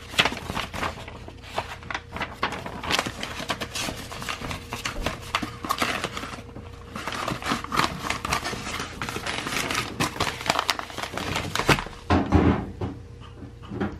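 Paper and a padded envelope handled on a wooden workbench: rustling and crinkling with many small clicks and taps.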